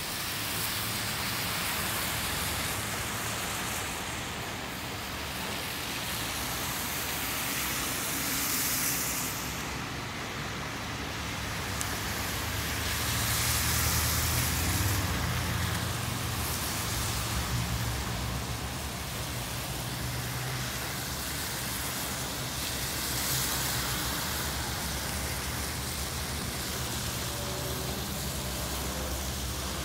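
Road traffic on a rain-soaked road: cars and trucks driving past, their tyres hissing through the water in a steady wash that swells with each passing vehicle. A heavier engine rumble joins it about halfway through as a pickup truck goes by close.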